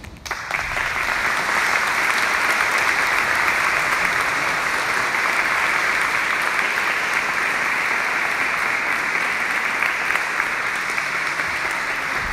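Audience applauding: the clapping breaks out suddenly just after the start, holds steady and loud, and eases slightly near the end.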